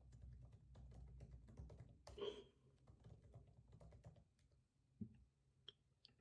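Faint typing on a computer keyboard: a quick run of key clicks as a username and password are typed, with one brief louder sound about two seconds in, then a few isolated clicks near the end.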